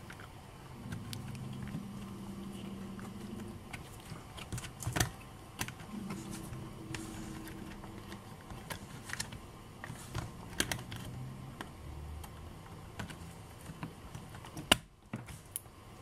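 Fingertips handling a laptop RAM module and pressing it into its memory slot: scattered small clicks and taps of the module's board against the slot and latches, with a sharper click near the end.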